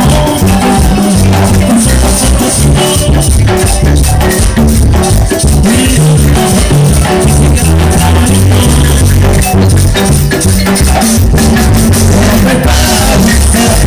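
Marimba orquesta playing live dance music, loud through PA speakers, with a stepping bass line under steady percussion.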